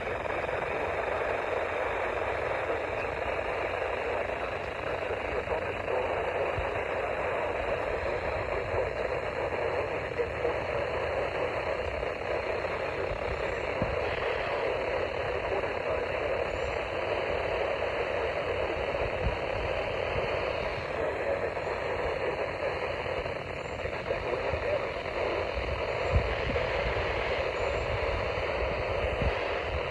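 Steady hiss of radio static, with one sharp click near the end.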